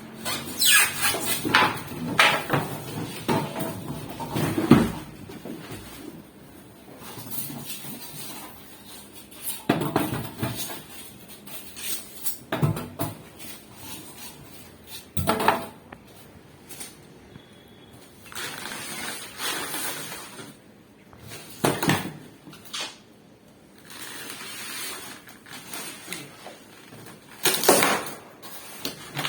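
Irregular knocks, clunks and clattering from objects being handled and moved, with quieter gaps between, thickest in the first few seconds and again near the end.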